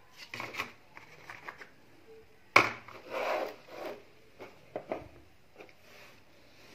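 Hands handling iPhone 12 Pro Max packaging: paper and cardboard rubbing and tapping in short irregular bursts, with one sharp knock about two and a half seconds in.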